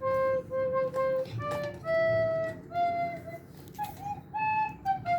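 Background music: a simple melody of short, separate notes on a wind-like instrument, stepping up and down in pitch.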